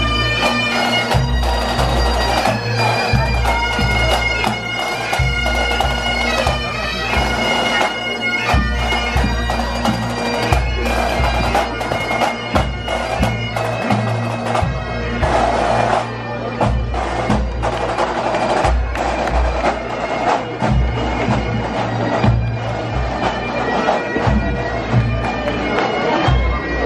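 Pipe band playing: several bagpipes sound a melody over a steady drone, with drums beating throughout.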